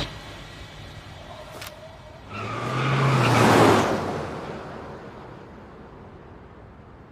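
A vehicle passing by. It swells about two seconds in, is loudest around the middle, then fades slowly away.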